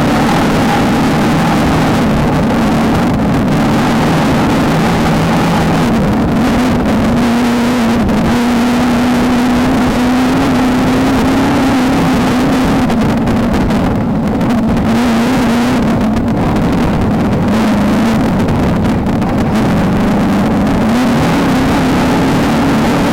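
VW Beetle off-road race car's engine running hard and continuously, its pitch climbing slowly and then falling back a couple of times as the throttle changes. A steady rushing noise runs underneath.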